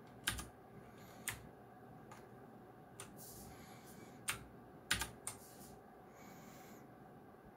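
Clicky blue-switch mechanical keyboard (Geekstar & Deck Hassium Pro 108), single keys pressed one at a time about a second apart, with a quick run of three presses about two-thirds of the way through.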